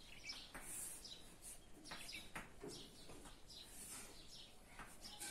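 Faint chalk strokes on a blackboard, short separate scratches and taps as a line and an arrow are drawn.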